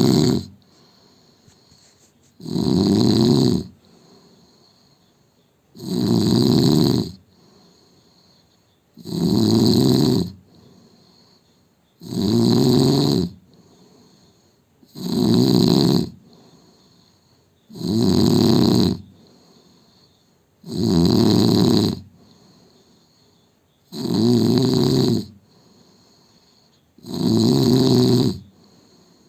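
A man snoring loudly in a steady rhythm: about ten snores, one roughly every three seconds, each lasting a little over a second, with much quieter stretches between them.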